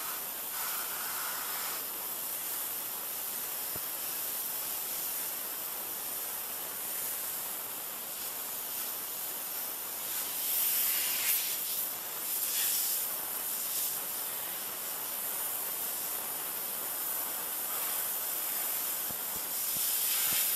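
A 3000 psi pressure washer's water jet spraying against a plastic lawn chair: a steady hiss that swells in loudness about halfway through and cuts off at the very end. It comes through thinly on a failing camcorder microphone, with no engine heard beneath it.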